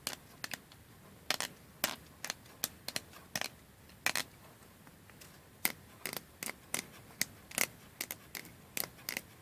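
Irregular series of sharp plastic clicks, two or three a second, from a 3D-printed PLA adjustable wrench worked by hand, its just-freed worm gear turning and jaw sliding.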